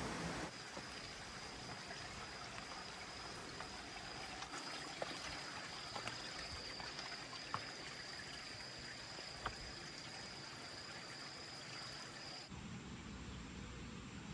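Running water, a steady rushing flow, with a thin steady high-pitched tone over it and a few sharp clicks.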